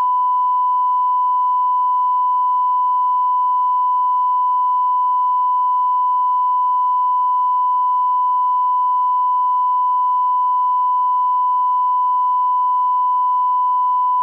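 A 1 kHz reference test tone, the line-up tone that accompanies SMPTE colour bars: one unbroken pure beep held at a constant level.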